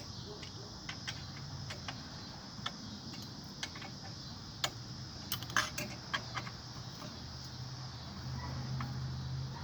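Scattered light metallic clicks and clinks of hand tools and small metal parts being handled during a teardown, a cluster of them about halfway through, over a low steady hum.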